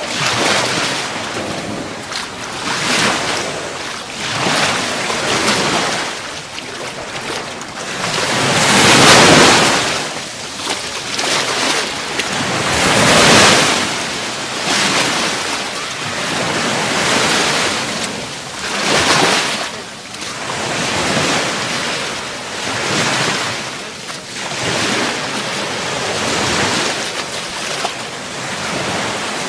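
Gulf of Mexico surf washing onto the beach, surging and ebbing every couple of seconds, with the two biggest waves about nine and thirteen seconds in.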